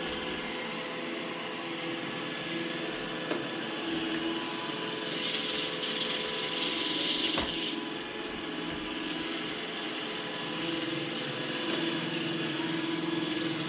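iRobot Roomba E6 robot vacuum running, pretty quiet: a steady motor hum with its brushes whirring, a louder hiss from about five to eight seconds in, and a single sharp knock a little past halfway.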